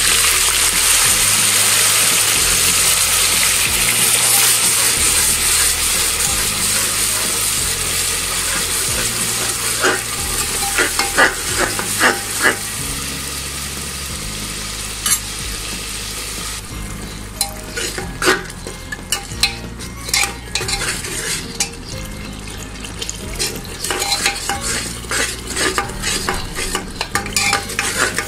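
Onion paste frying in hot oil and ghee with a steady sizzle that dies down about sixteen seconds in. A metal spoon scrapes and clinks against the pot as it is stirred, now and then at first and often in the second half.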